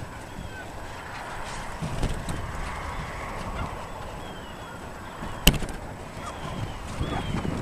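Rustle and rumble on the microphone of a camera hanging under helium balloons in flight, with faint high squeaks now and then and one sharp click about five and a half seconds in.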